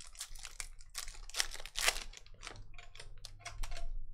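Foil trading-card pack wrapper and stiff cards being handled: the wrapper crinkles and the cards slide and flick against each other in an irregular run of crackly clicks, loudest about one and a half and two seconds in.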